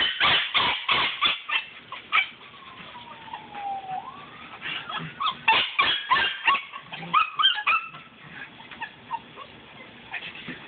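A Belgian Malinois puppy yips and whimpers in short calls while biting and tugging in play, over quick scuffling on dirt in two clusters, at the start and again from about halfway in.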